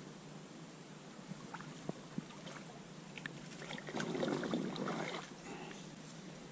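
Kayak being paddled: light water noise and scattered small ticks from the paddle, with one louder swishing stroke through the water about four seconds in.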